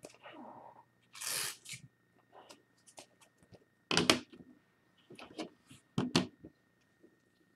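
Trading cards being handled by hand: a soft rustling slide about a second in, then a few sharp taps and clicks, the loudest near the middle and again near the end.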